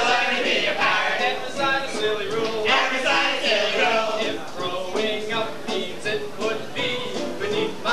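Live stage musical number: a singer sings over backing music, with other voices joining in.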